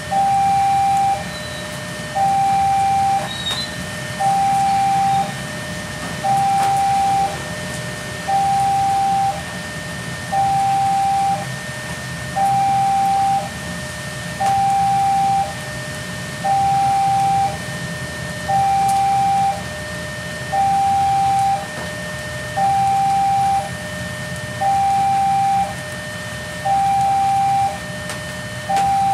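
Electronic level-crossing warning alarm sounding a steady two-tone signal: a louder high tone and a lower tone alternate, about one cycle every two seconds, warning of an approaching train. Steady rain hiss runs underneath.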